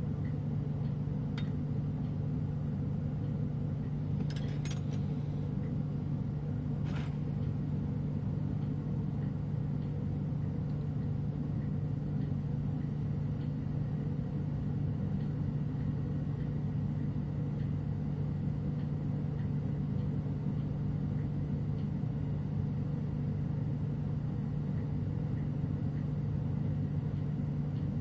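Glassworking bench torch burning steadily, a low even rumble, with a few faint clicks about four to seven seconds in.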